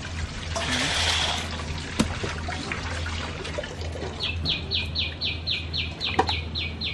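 A cleaver knocking on a wet wooden chopping board, with sharp single knocks at about two and six seconds, and a brief trickle of water about a second in. From about four seconds a rapid, evenly repeated chirping sets in, about three to four calls a second, over a steady low hum.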